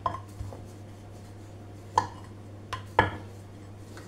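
Wooden rolling pin knocking against a metal rolling board as momo dough is rolled out. There is a sharp knock at the start, another about two seconds in, and two close together near three seconds, over a steady low hum.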